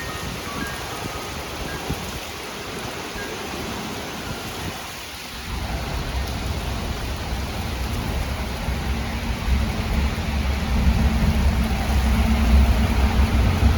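Steady heavy rain in a thunderstorm, with a low rumble that starts about five seconds in and grows louder toward the end.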